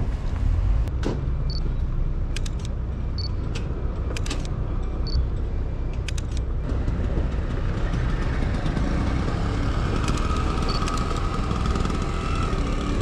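Outdoor street noise dominated by a motor vehicle engine running, a steady low rumble. A few short high beeps and sharp clicks are heard in the first half, and a faint steady whine comes in near the end.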